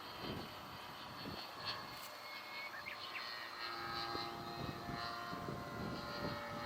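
Radio-controlled F3A aerobatic model airplane flying, its motor and propeller giving a steady drone that grows clearer about halfway through, with gusts of wind on the microphone.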